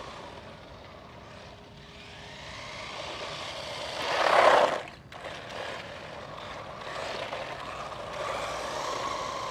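1:16-scale RC monster truck with a 390 brushed electric motor running on asphalt, its motor and gear whine mixed with tyre noise. The sound swells to its loudest as the truck passes close about four and a half seconds in, drops off suddenly just after, then builds up again.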